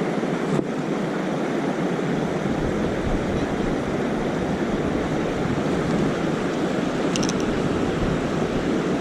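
Steady rushing of river water, an even noise that holds the same level throughout.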